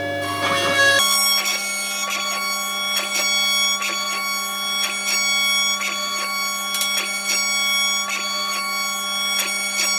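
Background music: held tones with a soft regular beat, changing to a new chord about a second in.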